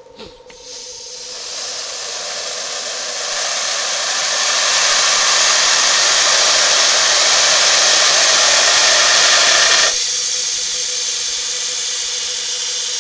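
Compressed gas hissing from a cylinder valve into a 36-inch foil balloon as it inflates. The hiss builds over the first few seconds, runs steadily, then drops abruptly to a quieter hiss about ten seconds in.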